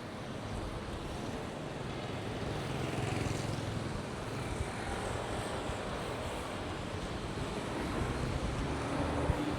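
Street traffic: a motor vehicle engine running past in a steady rumble.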